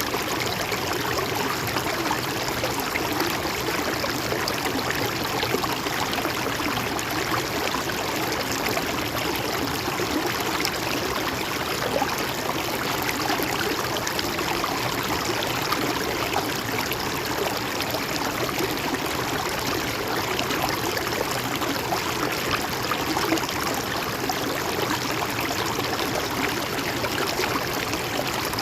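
A river or stream flowing steadily over rocks, a continuous rush with constant small splashes and gurgles.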